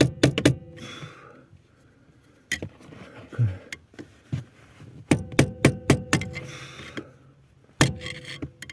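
Hammer blows on the steering intermediate shaft's universal joint, driving it deeper onto the steering rack's splines to take up play in the joint. Sharp metallic strikes in quick bursts, each leaving a short ring: a flurry at the start, a few single blows, a longer run about five to six seconds in, and one more near the end.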